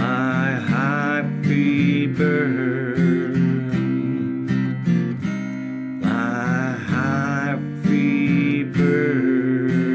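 Acoustic guitar strummed in a steady rhythm as the song's instrumental outro. Twice, about half a second and six seconds in, a wavering melody line rises above the chords.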